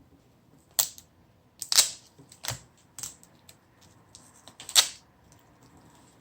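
Sharp clicks and taps of a laptop screen panel and its parts being handled, about half a dozen separate knocks with fainter ticks between, the loudest about two seconds in and near the end.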